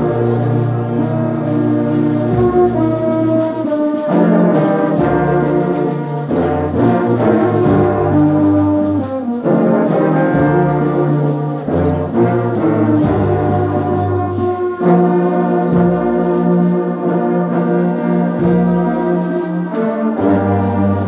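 Brass band of euphoniums, tubas and other brass horns playing a slow piece in full held chords, the bass line stepping to a new note every couple of seconds.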